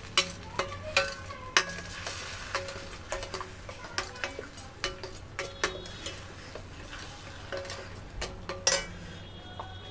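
Steel spoon stirring and scraping a thick onion-garlic-ginger-tomato paste frying in oil in a stainless steel kadhai, with irregular clinks of the spoon against the pan over a low sizzle.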